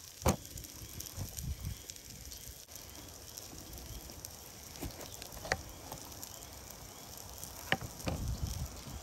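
Campfire crackling, with a few sharp pops scattered through it.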